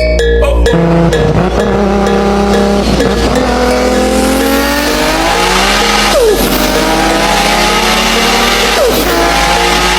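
Car engine accelerating hard: revs climb steadily and drop sharply at each upshift, then climb again.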